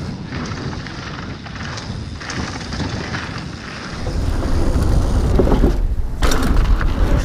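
Mountain bike running down a dirt trail: tyres rolling over the dirt and the bike rattling over bumps, with wind buffeting the action camera's microphone. The wind rumble gets much louder about four seconds in.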